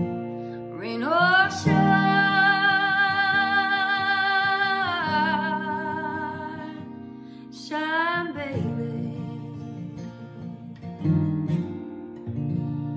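A woman sings over a strummed acoustic guitar. About a second in, her voice slides up into one long note with vibrato, held for several seconds, then a shorter sung phrase comes near the middle. The guitar plays on alone toward the end.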